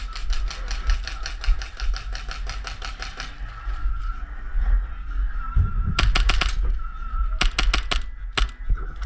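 Airsoft guns firing: a fast, even string of shots that stops about three seconds in, then two short bursts of about four shots in the second half and a single shot near the end.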